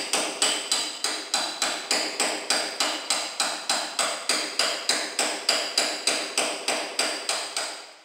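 Hand hammer striking in a fast, steady rhythm, about three or four blows a second, each blow with a short metallic ring, as poorly laid floor tiles are knocked out for removal. The hammering stops at the very end.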